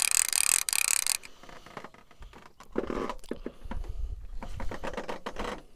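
Fishing reel being cranked, its gears whirring with a fast ticking, stopping abruptly about a second in. Quieter irregular rustling and handling noise follows.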